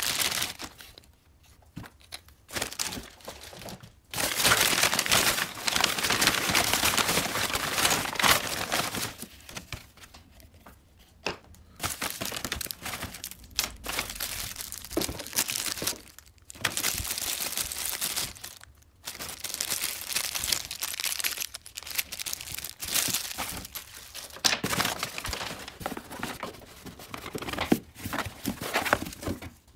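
Brown packing paper and plastic parts bags crumpling and crinkling as a cardboard box is unpacked by hand, in irregular bursts with short pauses between them.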